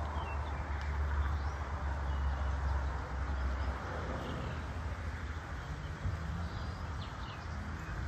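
Outdoor ambience: a steady low rumble, stronger in the first half, with a few faint bird chirps.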